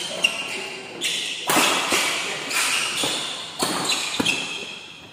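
Badminton rackets striking the shuttlecock in a fast doubles rally, about six sharp hits, with players' shoes scuffing and squeaking on the court floor.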